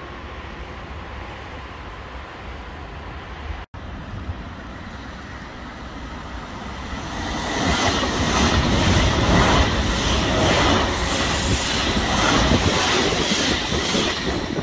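Italo high-speed train approaching and then passing close by at speed: a steady rumble grows, about seven seconds in, into a loud rush of wheels and air with a regular beat as the bogies go by.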